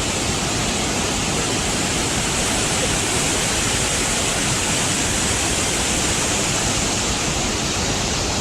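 Rain falling steadily: a loud, even hiss that neither builds nor eases.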